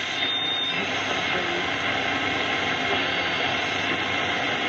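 Static hiss from an Oceanic Surcouf valve radio's speaker as its AM tuning knob is turned between stations, with a faint high whistle briefly near the start.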